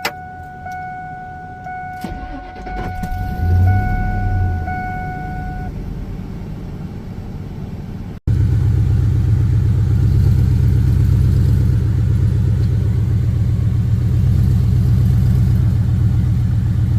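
1999 Ford F-150 cold start: a cab warning chime pings about once a second while the engine cranks, catches and flares up, then settles into a steady cold idle. Near the middle the sound jumps to a louder, closer steady idle.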